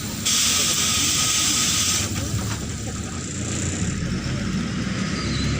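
Neman city bus's compressed-air system letting out a loud hiss for about two seconds, with the bus engine running underneath. The engine note swells about four seconds in.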